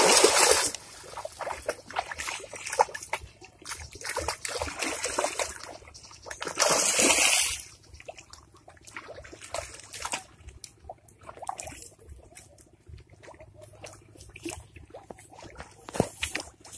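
Cast net hitting the river in a wide splash that dies away within the first second, followed by water sloshing and trickling as the net is hauled back through the water by its rope. A second short burst of splashing comes about seven seconds in.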